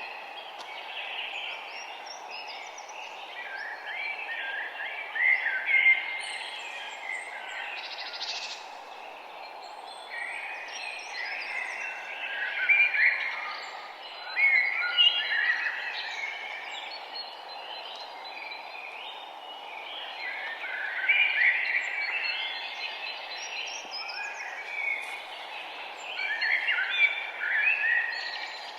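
Several songbirds singing and chirping, phrases overlapping in bursts throughout, over a steady background hiss.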